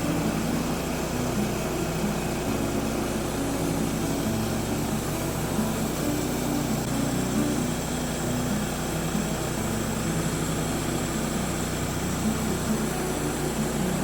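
Small gasoline engine of a Woodland Mills HM126 portable bandsaw mill running steadily under load as the blade saws a thin slice off a maple log.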